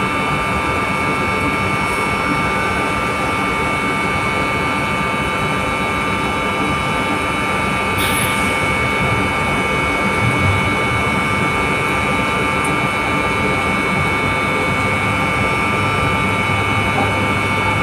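Pump-station machinery running steadily: a constant loud drone with a steady whine of several high tones.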